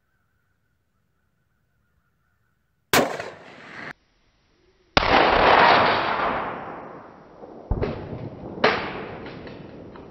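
A .308 rifle shot about three seconds in, its report ringing briefly before it cuts off. Then a loud bang with a long fading rush, and two more sharp reports near the end.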